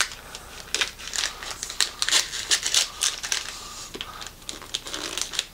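Shiny gift-wrapping paper crinkling and tearing as it is pulled off a box, in quick irregular crackles that are busiest from about two to three and a half seconds in.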